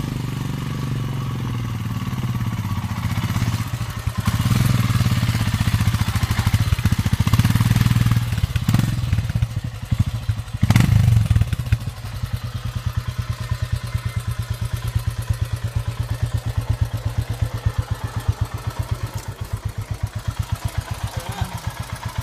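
Royal Enfield Himalayan's single-cylinder engine running on a rocky trail, louder through the first half with a sharp knock just before halfway, then settling into an evenly pulsing idle.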